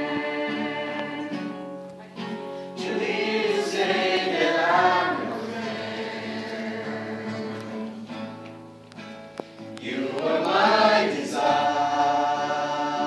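A small mixed group of men and women singing a religious song together from song sheets, in sustained sung phrases. The singing swells louder twice, a few seconds in and again near the end, with softer dips between the phrases.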